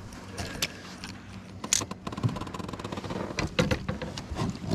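Clicks, knocks and rattles of a landing net and fishing gear being handled against a plastic kayak deck while a just-landed bass is taken from the net, with the sharpest knocks bunched together in the second half.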